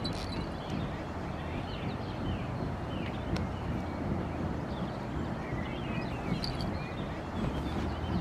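Small birds chirping many times, short calls scattered throughout, over a steady low background rumble.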